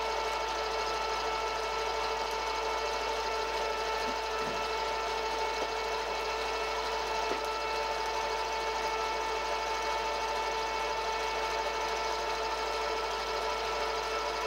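Vertical milling machine running with a small end mill cutting a narrow slot in a metal part held in the vise: a steady machine whine with several fixed tones.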